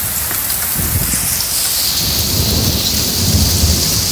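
Heavy rain pouring down in a severe thunderstorm, a steady hiss that grows stronger about halfway through. A deep rumble rises under it about a second in and fades near the end.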